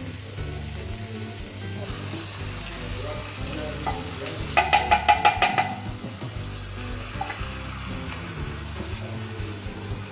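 Onions and spice paste sizzling in an enamelled pot on a gas hob, over background music. About four and a half seconds in comes a quick run of about eight ringing taps lasting just over a second.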